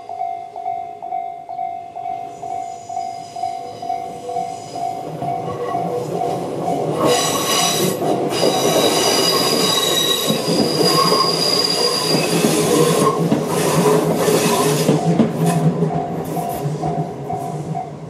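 Level-crossing warning bells (Tobu's electronic crossing tone, 'Tobu sound C') ringing steadily while a Tobu 8000-series electric train runs over the crossing from about six to sixteen seconds in, its wheels clattering and squealing on the rails. The bells stop near the end.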